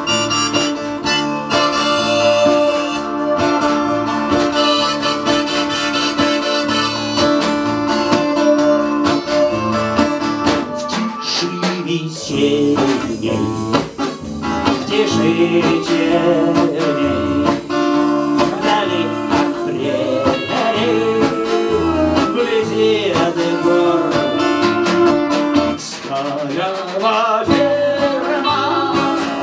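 Live acoustic folk band playing: harmonica holding chords over strummed acoustic guitar and bass for about the first ten seconds, after which a melody with sliding, wavering notes takes over on top of the band.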